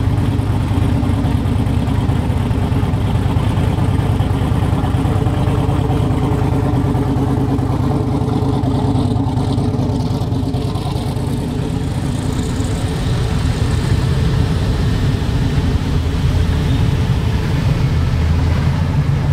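Classic Chevy pickup trucks' engines running as the trucks roll past at low speed. The sound dips slightly about halfway, then builds again as the next truck comes on.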